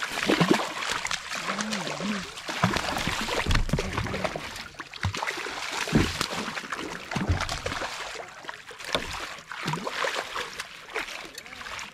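A hooked fish thrashing hard at the surface beside a kayak: continuous splashing and spraying water with many sharp slaps and a few heavier thumps. Near the end a landing net goes into the water.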